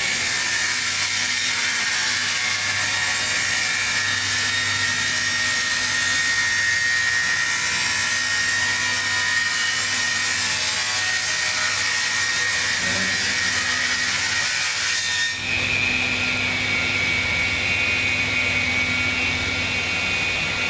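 Woodworking rip-saw machine running and sawing a wooden board: a steady, dense high hiss of the blades in the wood over the machine's even hum. About fifteen seconds in there is a brief dip, after which the pitch of the hum changes slightly.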